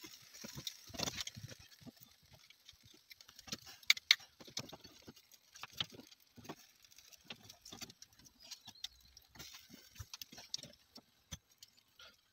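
Metal barbecue tongs clicking and tapping irregularly against a wire grill grate and the vegetables on it as they are turned over charcoal, with one louder clack about four seconds in.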